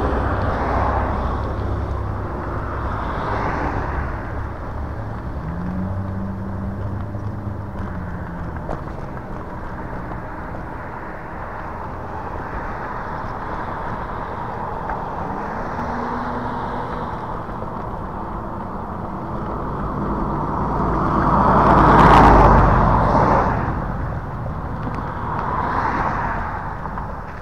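Road traffic: several cars pass by, the loudest about 22 seconds in. Under them runs a steady rumble of wind and wheels from a moving electric scooter.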